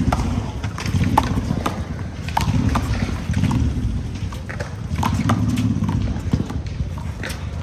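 One-wall handball rally: the rubber ball is slapped by hand against the wall and bounces on the court surface, giving a string of sharp knocks roughly every half second to a second, over the sound of players' feet moving about the court.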